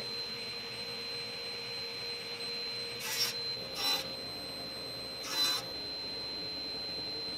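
Table saw running with a steady hum, and three short hisses about three, four and five and a half seconds in as the blade cuts through baltic birch plywood segments on a crosscut sled.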